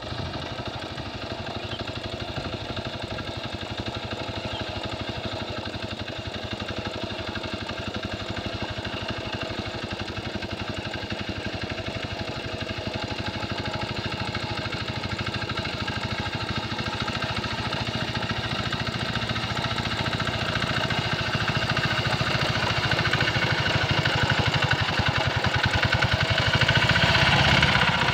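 Small engine of a two-wheel hand tractor (Quick Capung Metal) running steadily under load as it works a muddy, flooded rice paddy, with a fast even chugging that grows steadily louder as the tractor comes closer.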